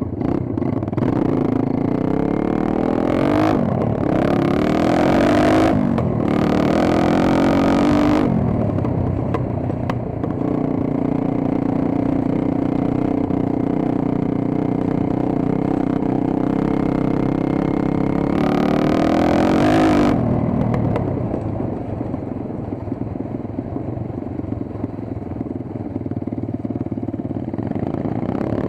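Dirt bike engine being ridden, revving up repeatedly with rising pitch sweeps in the first several seconds, running steadier through the middle, then revving up again about two-thirds of the way through.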